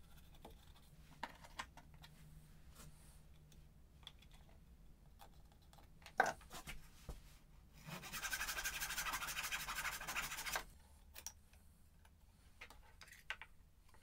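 Light taps, rubs and rustles of hands working masking tape onto a small wooden dovetail box, with a sharp click about six seconds in and a steady rasping scrape lasting about two and a half seconds near the middle.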